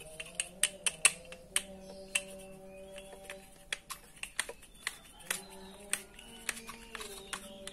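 Irregular sharp clicks and taps of hard parts being handled: the metal gear head and plastic body of an angle grinder being fitted back together by hand, with the loudest clicks in the first second.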